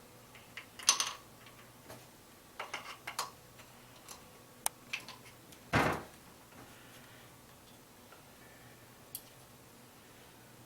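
Scattered small clicks and taps of parts being handled as a pistol grip is fitted to an AR-15 lower receiver with its screw and washer, with one louder knock about six seconds in.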